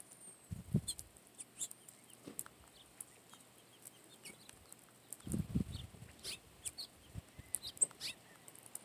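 Scattered faint chirps and chips from a flock of small seed-eating birds, house sparrows and house finches, feeding on the ground. A few low dull thumps come about a second in and again around five and a half seconds.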